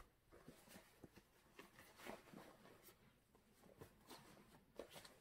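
Faint, irregular rustling and light taps of folded jeans being handled and stacked.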